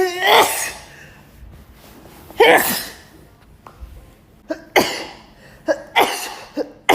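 A woman sneezing over and over in a sneezing fit: about five loud sneezes, coming closer together toward the end.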